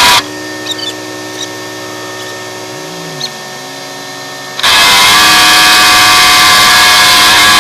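Road-paving machinery running: a steady engine hum with one tone dipping and recovering about three seconds in, then much louder machine noise from about four and a half seconds in.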